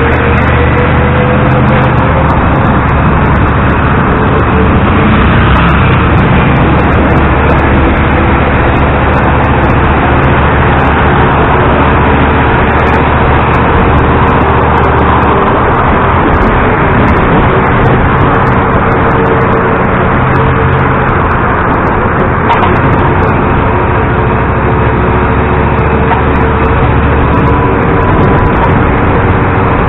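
LiAZ-677M city bus on the move: its petrol V8 engine and drivetrain running loud and steady, with a tone that rises in the first few seconds as the bus picks up speed.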